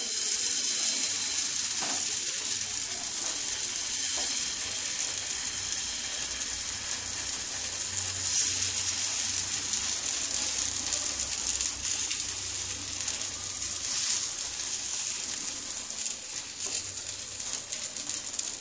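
Gola ruti batter sizzling steadily in oil on a hot nonstick tawa as it is spread out with a ladle.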